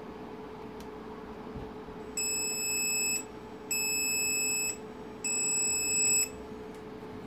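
Three even, high-pitched electronic beeps, each about a second long with short gaps, from the powered Audi TT Mk1 instrument cluster's warning buzzer; a steady low hum runs underneath.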